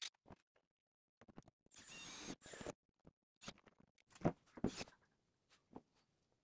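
Small clicks, knocks and rustles of hands working with wiring and hand tools on a plastic sled. There is a hissy, whirring burst of about a second around two seconds in, and a sharp snap just past four seconds is the loudest sound.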